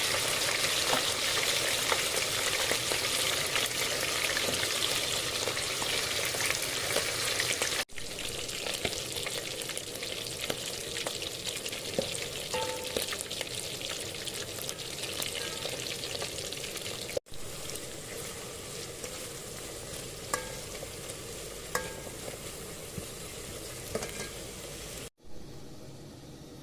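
Food frying in a pan, with a steady sizzle that grows fainter and breaks off abruptly three times. There are a few light metallic taps with a short ring.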